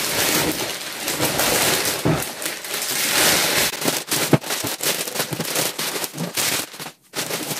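Clear plastic wrapping being pulled off and crumpled by hand: a dense, continuous crinkling crackle that breaks off briefly near the end.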